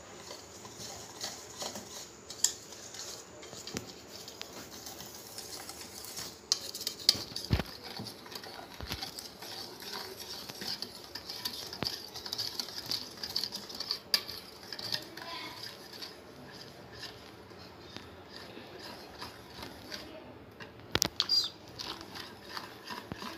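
Metal utensil stirring a thin cocoa-and-milk chocolate syrup mixture in a ceramic bowl: quick, irregular clinks and scrapes against the bowl, with a few louder knocks about seven seconds in and again near the end.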